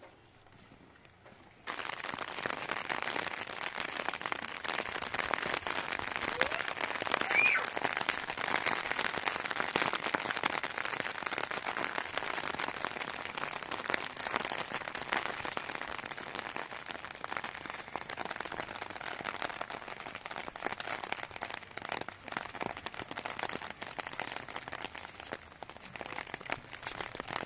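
Steady rain falling and pattering, a dense hiss of many small drop ticks, starting abruptly about two seconds in after a near-quiet start.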